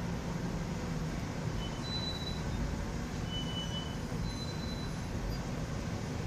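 New York City subway train running across the Williamsburg Bridge: a steady rumble of wheels on the track, with a few short, high wheel squeals in the middle.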